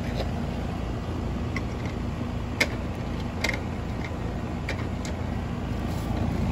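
Outdoor central air-conditioner condensing unit running with a steady low hum, fan and compressor powered through a newly fitted dual run capacitor that replaced a defective one. A couple of faint sharp ticks come through a few seconds in.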